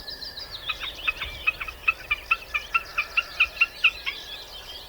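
Common snipe giving its rhythmic 'tick-tock' call: a fast, even run of about fifteen short, clipped notes, some five a second, which stops about four seconds in. Other small songbirds chirp faintly behind it.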